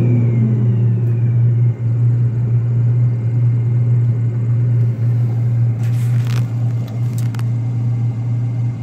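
A John Deere combine's diesel engine running in a steady low drone as the machine drives along the road, with a few short clicks or rattles about six to seven seconds in.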